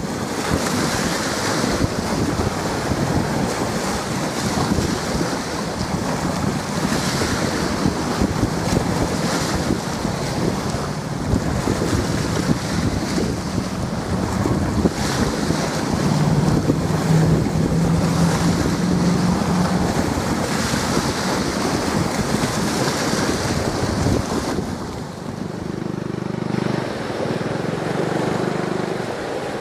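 Strong wind buffeting the microphone over choppy sea waves washing in, in gusts that swell and fade. A faint low steady hum comes in twice, about halfway through and again near the end.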